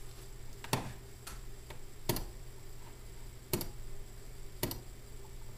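Computer mouse clicking: four sharp clicks at uneven intervals, with a couple of fainter ones between, over a steady low hum.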